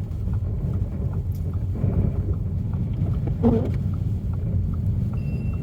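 Car cabin noise while driving through deep snow: a steady low rumble of tyres and engine, with one brief louder sound about three and a half seconds in.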